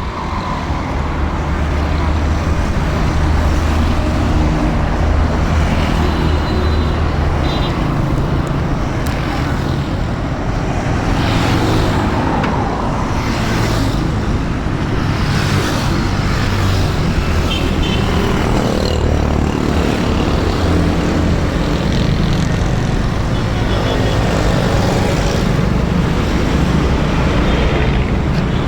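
Steady motor-vehicle and road-traffic noise: engines running with a continuous low rumble and no breaks.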